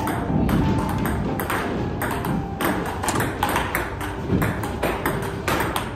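Table tennis rally: a celluloid/plastic ping-pong ball clicking off paddles and the table top in a quick, steady run of hits, several a second.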